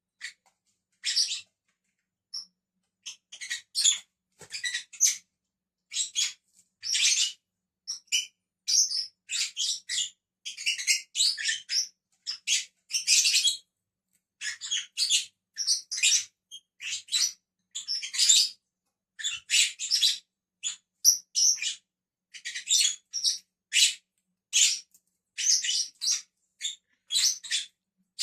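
Pet lovebirds chirping: a long run of short, shrill, high chirps, one to three a second, with only brief pauses.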